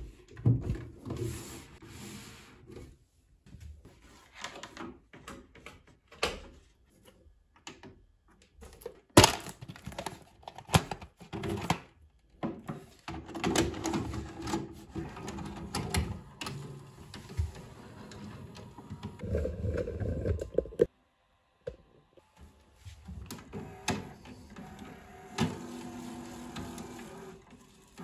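Clicks, knocks and rubbing of a Grundig GVP 500 VHS video recorder's casing being handled and set down on a desk, and of a VHS cassette being pushed into its front slot. One sharp knock about nine seconds in is the loudest.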